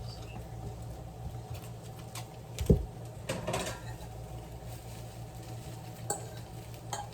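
Kitchen dishes and utensils being handled: scattered clinks and knocks, with one louder thump a little under three seconds in, over a steady low hum.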